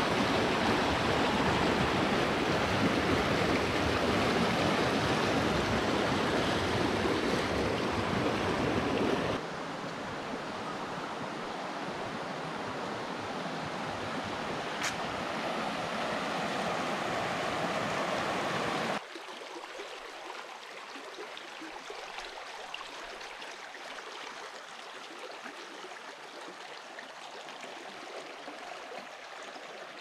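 Water rushing over rocks in a shallow mountain stream with small cascades, a steady full splashing flow. It drops abruptly to a quieter rush about nine seconds in, and to a fainter, thinner trickle at about nineteen seconds.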